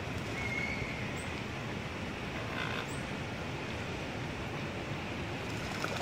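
Steady outdoor background noise, a low rumble and hiss with no clear single source, with a short, faint whistled bird call about half a second in.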